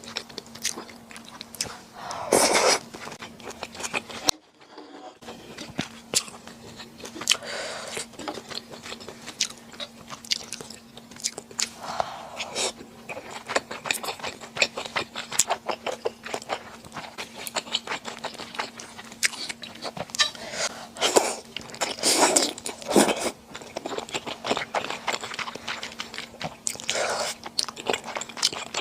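Close-up chewing and biting of Chinese glass noodles and rice balls: a dense run of small wet mouth clicks with a few louder bursts, briefly cut off just after four seconds.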